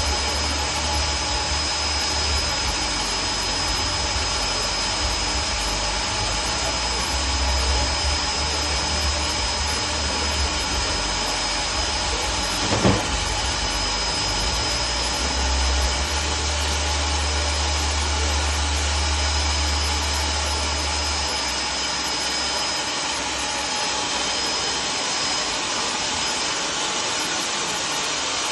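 Hand-built mobile sawmill running: a steady, loud machine noise with a fixed high whine. A low rumble underneath drops away about three-quarters of the way through, and there is one sharp knock near the middle.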